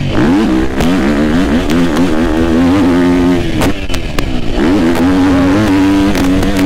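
GasGas MC250F's 250 cc single-cylinder four-stroke motocross engine revving up and down under hard riding, with the pitch swinging through throttle changes. It drops out briefly about halfway through, then climbs back and holds a high pitch. A few short clicks come through it.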